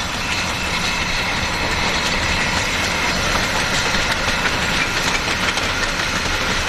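Narrow-gauge steam tank locomotive working a passenger train past, its exhaust and the wheels on the rails running steadily and growing slightly louder as it approaches.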